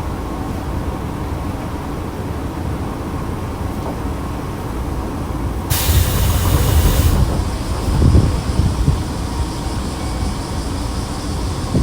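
Inside a Nankai electric train car, a steady low hum and rumble from the train's equipment. About six seconds in, a sharp burst of compressed air hisses for about a second and a half, and a short low thud follows about two seconds later.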